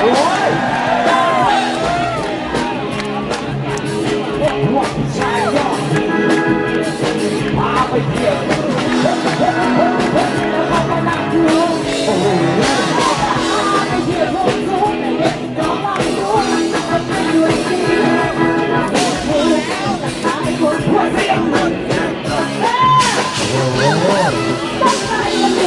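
Live band playing with a woman singing lead into a handheld microphone through the PA.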